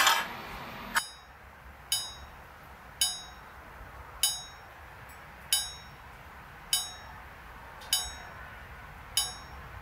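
A hammer tapping steel: eight light strikes, evenly spaced about one every second and a bit, each leaving a short high metallic ring.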